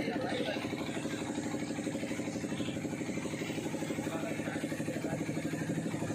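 Motorboat engine running steadily with a rapid, even beat, heard from aboard the boat.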